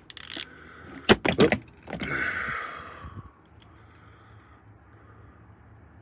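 Metal clinks and clicks of a chrome T45 Torx bit socket being handled and fitted onto a ratchet, with a quick cluster of sharp clicks about a second in. A brief hiss follows and fades, leaving a faint low hum.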